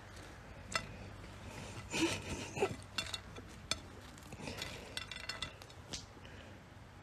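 Scattered light clicks and clinks of a plate being touched and nudged, with a denser cluster about two seconds in.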